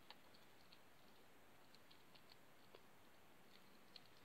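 Four-week-old Maine Coon kitten just starting on solid food, chewing at a dish: faint, irregular small clicks, a few a little louder than the rest.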